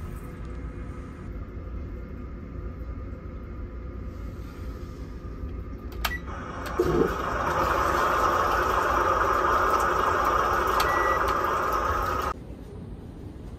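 TOTO toilet privacy button playing its recorded flushing-water sound through a small speaker: a beep about six seconds in, then a steady rushing-water hiss for about six seconds that cuts off suddenly. A low, steady hum from the ship runs underneath.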